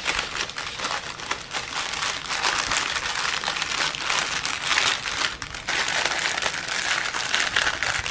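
Thin clear plastic bags crinkling and crackling steadily as hands handle and open them.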